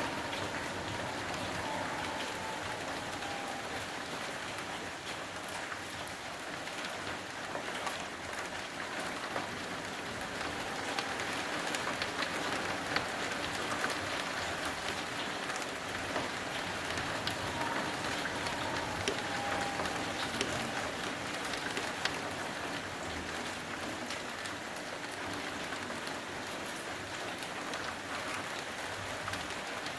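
Steady rain falling on a built-up street, an even hiss with scattered small drip ticks close by. A faint, slightly falling tone comes through twice, about two seconds in and again near the middle.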